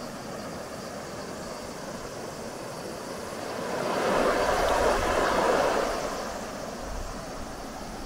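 Steady rush of a shallow, rocky river flowing over small rapids, swelling louder for a couple of seconds around the middle.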